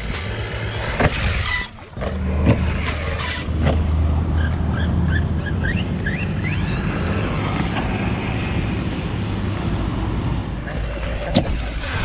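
Brushless electric RC truck motor (Redcat Shredder 1/6 scale) whining in short revs as the truck drives over dirt, over a steady low rumble.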